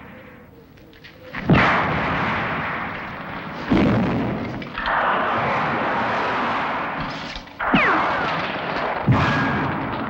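Film sound effects of fiery pyrotechnic explosions: about five blasts a second or two apart, each starting sharply and fading away slowly.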